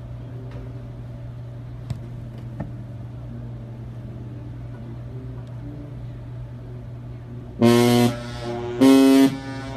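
A sousaphone being lifted and settled with a couple of small clicks, then near the end two loud, short low brass notes about a second apart with a softer note between them.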